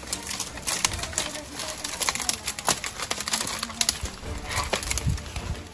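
Footsteps rustling and crackling through dry leaves, twigs and weedy undergrowth: a run of irregular scuffs and snaps as several people creep along on foot.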